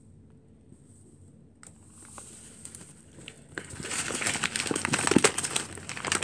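A packet of rye flour crinkling as it is handled. Quiet at first with a single click, it turns into dense, busy crackling over the last two and a half seconds.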